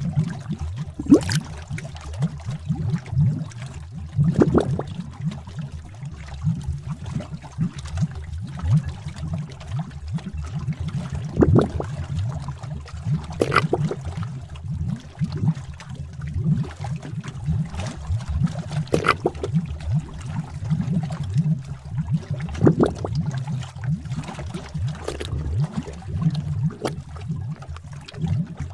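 Bubbling cauldron sound effect: thick liquid bubbling and gurgling over a steady low rumble, with irregular louder pops every few seconds.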